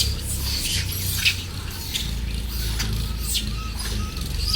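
A monkey's shrill screeching: a run of short, harsh, high-pitched shrieks repeated every half second or so, over a steady low rumble.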